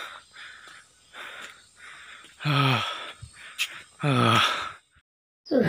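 A person breathing hard from the effort of climbing stairs: soft breathy puffs, then two loud voiced exhalations falling in pitch, about 2.5 and 4 seconds in. The sound cuts off suddenly near the end.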